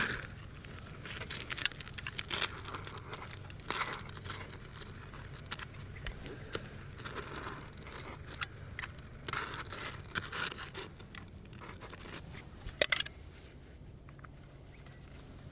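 Irregular scraping, crinkling and sharp clicks of hands handling roofing material and a sealant tube while the last ridge cap piece is glued down, with one louder click near the end.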